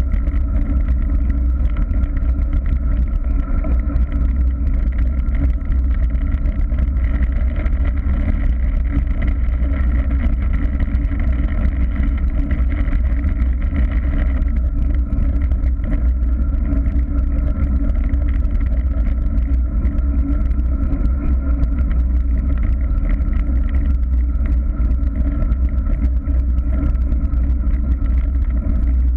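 Steady, loud rumble of wind buffeting the microphone and tyres rolling on tarmac, from a camera riding low along a road.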